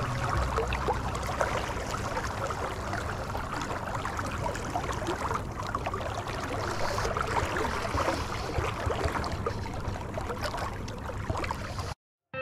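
Fast river current gurgling and splashing close by, a steady rushing wash full of small crackles, that cuts off suddenly near the end.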